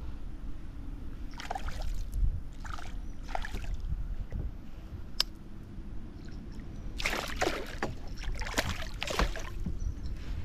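Water splashing in short irregular bursts, the longest pair in the second half, over a steady low rumble, with one sharp click about midway.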